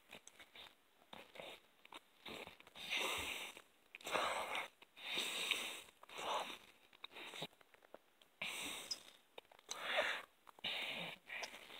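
A person chewing mouthfuls of a soft hamburger close to the microphone, with a string of heavy, noisy breaths through the nose between chews.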